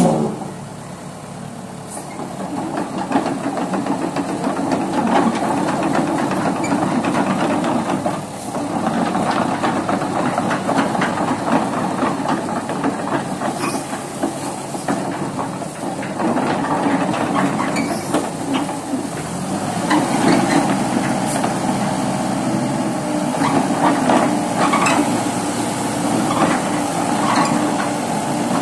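Komatsu PC78 hydraulic excavator's diesel engine running under load while the boom, arm and bucket are worked. It grows louder about two seconds in and eases off briefly twice. There is a sharp knock at the very start.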